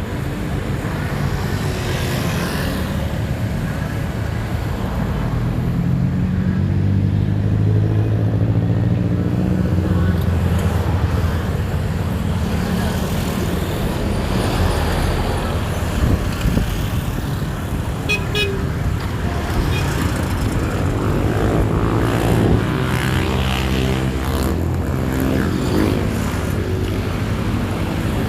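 Roadside traffic: cars and motorbikes passing over a steady rumble, with engines swelling twice as vehicles go by and a short horn beep partway through.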